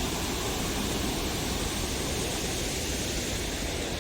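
Steady rushing noise of fast-flowing floodwater spilling over from a full lake.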